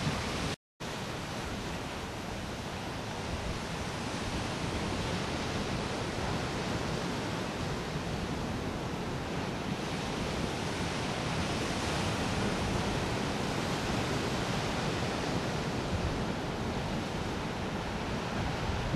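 Steady rush of ocean surf mixed with wind on the camera microphone. The sound cuts out completely for a split second just under a second in.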